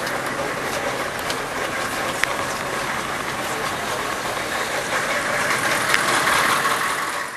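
Steady street din with a vehicle engine idling, broken by a few faint clicks, cut off abruptly at the end.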